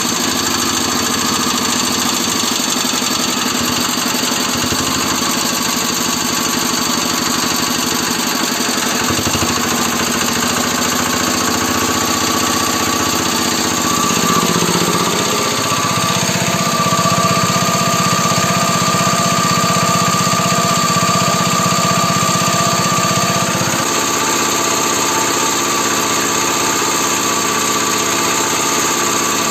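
Small 4 hp single-cylinder diesel engine driving a generator, running steadily on its test run after a fuel pump repair. About halfway through it is throttled up and runs faster with a higher whine for several seconds, then drops back suddenly to its earlier speed.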